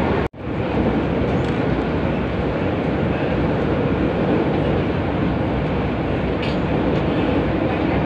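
Inside a moving Hong Kong MTR metro car: the steady rumble of the train running along the track. The sound cuts out for an instant near the start.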